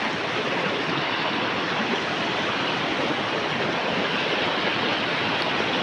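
Water pouring down from above over rock, a steady rushing.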